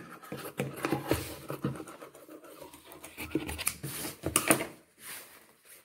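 White cotton fabric being handled and slid across a sewing table, rustling and scraping in irregular bursts.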